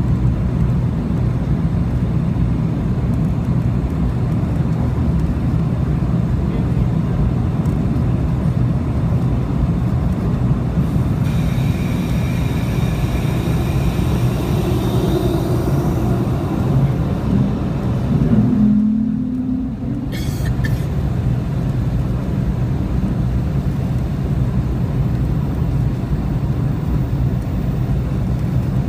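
Steady airliner cabin noise during the climb after takeoff: a loud, even rumble of the jet engines and rushing air heard from a window seat. About two-thirds of the way through there is a short low tone and a brief dip in the noise.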